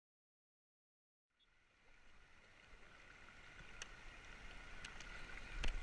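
Digital silence for just over a second, then a faint, steady rushing hiss from the open air, with a few light clicks. It grows louder near the end.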